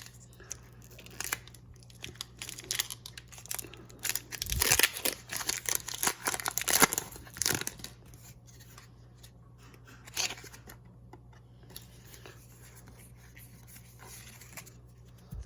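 Foil booster pack wrapper of Pokémon trading cards being torn open and crinkled by hand, in a run of crackling rips over the first several seconds, then a few faint soft ticks of the cards being handled.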